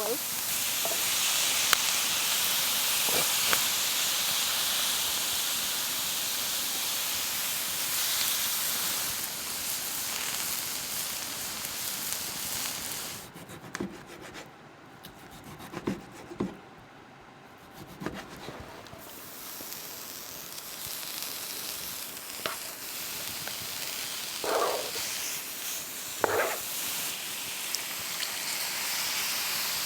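Marinated meat sizzling in a pan over a campfire: a steady hissing that fades out for several seconds midway and then comes back, with a few faint clicks.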